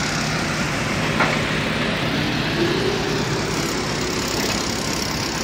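Excavator engine running steadily, with a single sharp click about a second in.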